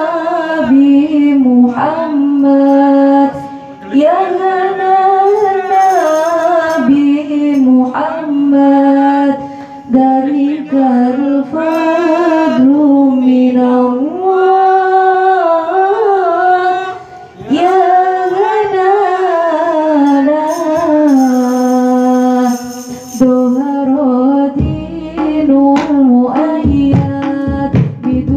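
A woman singing a sholawat (Islamic devotional song) into a microphone, in long ornamented phrases with held, wavering notes. Near the end, rebana frame drums and bass come in under her voice with a beat.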